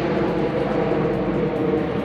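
Steady, loud rumbling noise with no distinct knocks or events.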